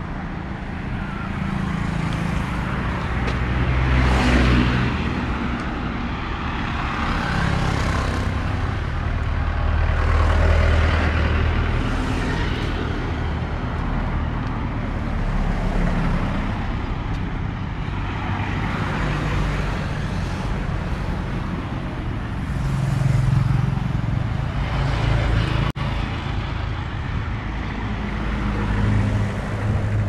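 Road traffic on a two-lane road: cars and a small truck passing close by one after another, each engine rumble and tyre hiss swelling and fading, about every three to four seconds.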